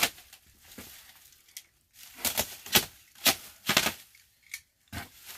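A large cardboard box being grabbed and handled: a quick run of sharp knocks and scrapes, about half a dozen over two or three seconds in the middle.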